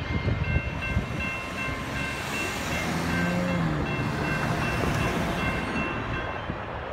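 Intermodal freight train cars rolling past with steady wheel-on-rail noise, while the crossing's NEG electronic bells ding over and over; the bells fall silent near the end.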